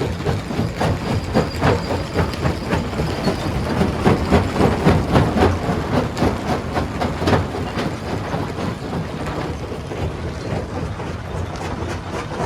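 Rock crusher breaking stones: irregular cracking and knocking of rock over the steady low drone of the machine.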